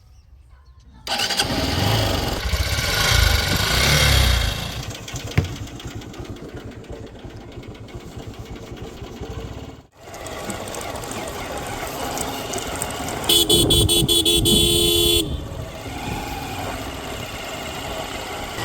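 Diesel engine running, loudest for a few seconds after it comes in and then steadier. Near the end a vehicle horn sounds once, steadily, for about two seconds.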